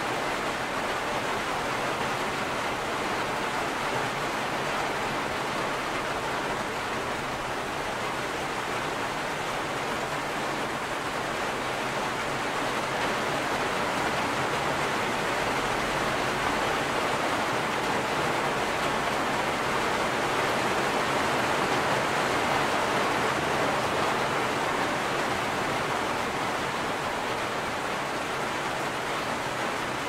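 Steady rain, an even hiss without distinct drops, growing a little louder about two-thirds of the way through.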